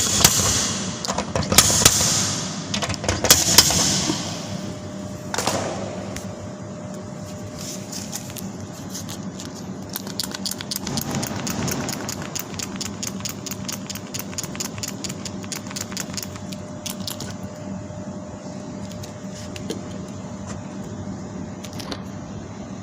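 Paintless dent repair work on a car body panel: three loud bursts of hissing noise in the first few seconds, then a long run of light, quick metallic taps and clicks over a steady low hum.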